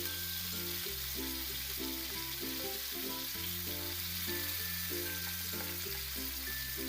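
Food sizzling as it fries in a miniature pan, over background music with short notes above a bass line that changes every couple of seconds.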